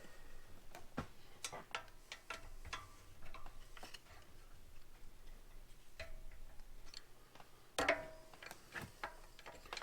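Scattered light metallic clicks and taps from hand tools working the mounting bolts of a pressure washer's replacement pump, coming at uneven intervals. The sharpest click comes a little before 8 seconds in.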